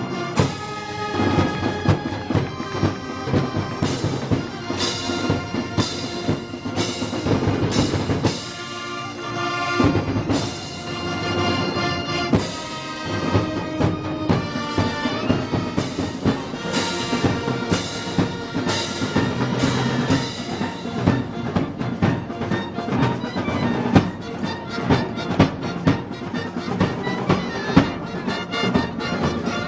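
Festival brass band playing march music, with drums and repeated cymbal crashes over sustained brass notes.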